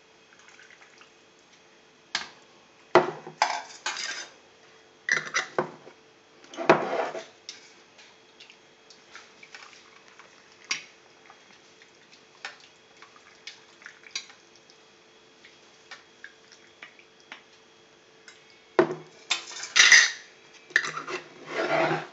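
A metal ladle clinking and scraping against a stainless steel pot and glass jars while hot brine is ladled over cucumbers for pickling. Clusters of sharp clinks come in the first few seconds and again near the end, with sparse light taps in between.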